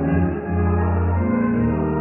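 Hymn accompaniment playing held chords, with little or no singing, so an instrumental passage of the carol; the level dips briefly about half a second in.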